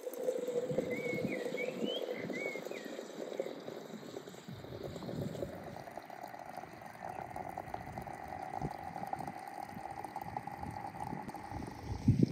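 Hot water pouring from a samovar's tap into a glass teapot of loose tea leaves. The pitch of the filling rises steadily as the pot fills. A sharp knock comes just before the end.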